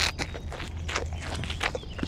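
Fresh green leaves rustling and crunching in a small trough as a toy animal's head is pushed into them: a quick run of about eight crisp, dry crunches.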